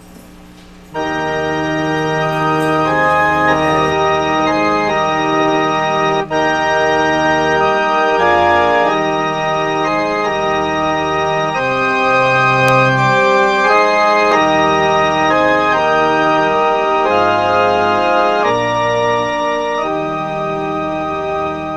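Organ playing held chords over a moving bass line: closing music right after the benediction. It comes in about a second in.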